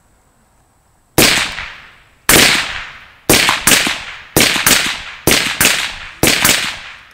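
Volley of about ten rifle shots from AR-15-style 5.56 carbines fired from prone. The shots come roughly a second apart, several in quick pairs, each ending in a short echoing tail.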